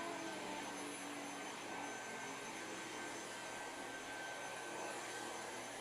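Dyson cordless stick vacuum running steadily: a rush of air with a constant high-pitched motor whine.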